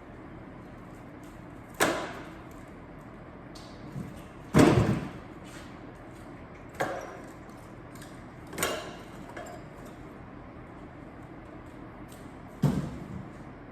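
Firewood being worked: five sharp wooden knocks and thuds at uneven intervals a few seconds apart, the second the loudest, over a steady background hum.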